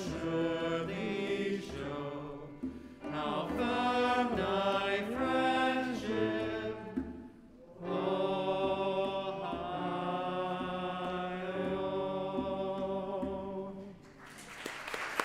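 A hymn sung by a group of voices in slow, sustained chords, the last chord held for several seconds and fading out. Applause breaks out near the end.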